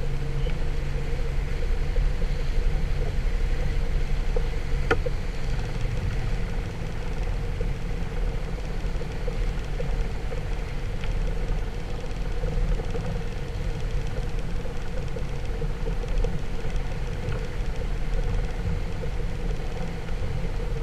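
Motorboat engine running steadily as the boat cruises, with a steady hiss over it.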